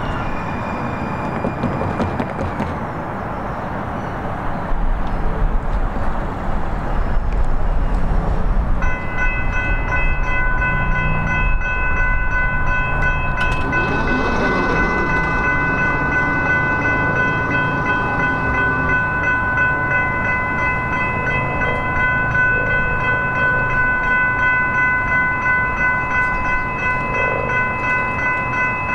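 Railroad crossing warning bells start ringing abruptly about nine seconds in and ring steadily on, the crossing's signal activating. Before that there is a low rumble and street noise, and a passing vehicle swells up around the middle.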